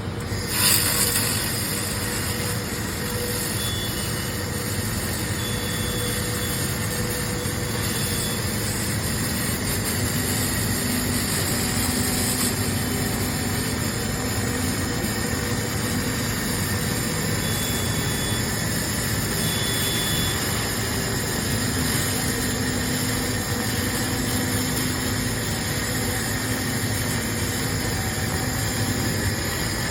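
Handheld fiber laser blasting rust off metal: a steady hiss that sets in with a sharp burst about a second in, over a steady mechanical hum.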